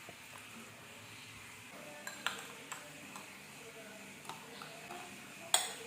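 Kitchenware clinking and tapping: scattered light clicks with a faint ring, then one louder clatter near the end.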